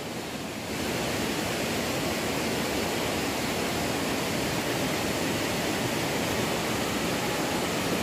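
Steady rushing of a waterfall and its stream, an even constant noise that steps up slightly about a second in.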